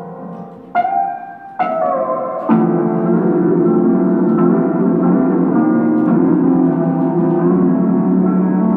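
Electronic keyboard played with long sustained notes: three chords struck in quick succession in the first few seconds, the third building into a thick chord that rings on.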